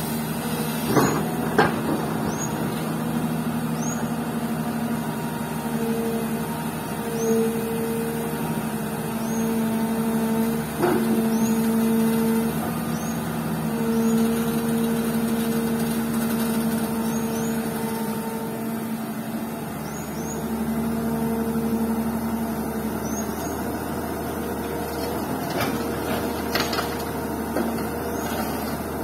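Komatsu PC200 hydraulic excavator's diesel engine running under load with a steady hum that grows stronger for stretches as it digs and swings. A few sharp knocks of the bucket on rock, with a pair near the end as the load is swung over the dump truck.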